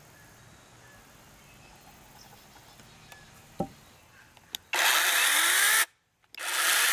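NaTiddy mini battery-powered chainsaw triggered twice in the air, no wood, its chain freshly oiled: two short runs of about a second each, the motor and chain spinning up with a rising whine, then cutting off. A faint click or two comes just before the first run.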